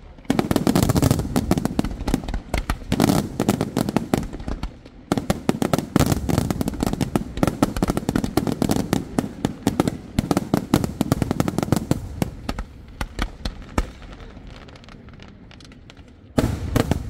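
Aerial fireworks display: a rapid, dense barrage of shell bursts and bangs from many shells and comets launched together. There is a brief lull about five seconds in, the bangs thin out and drop in level past the middle, and a fresh loud volley starts near the end.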